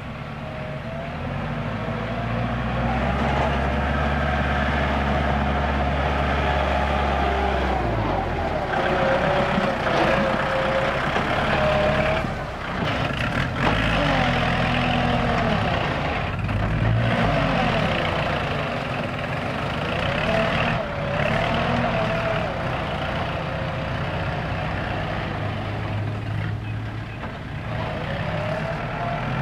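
Kubota L4708 tractor's diesel engine working under load as it pushes and levels soil, its pitch wavering up and down as the load changes.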